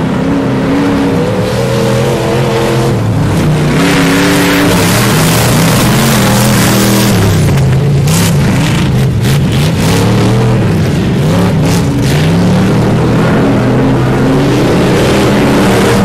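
Off-road race truck engines revving hard and easing off again and again, the pitch repeatedly rising and falling as they drive a dirt course. A hissing rush joins from about four seconds in.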